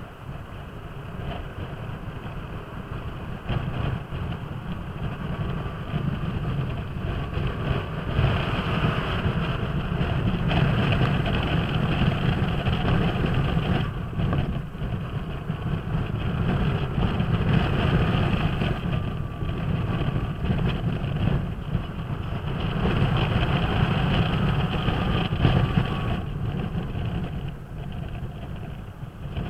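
Kymco Downtown 300i maxi-scooter under way, its single-cylinder engine running under a steady rush of wind on the microphone, swelling louder several times.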